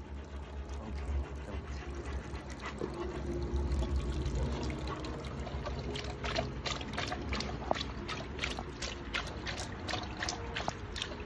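A Doberman lapping water from the spout of a running garden fountain, about three laps a second from about halfway in, over the steady trickle of the fountain.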